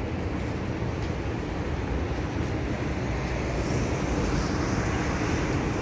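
Wind buffeting the microphone, a steady low rumble.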